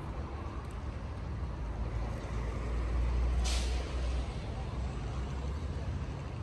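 City street traffic with a heavy vehicle's engine rumbling close by, louder for a second or so in the middle, and a short hiss of air brakes about three and a half seconds in.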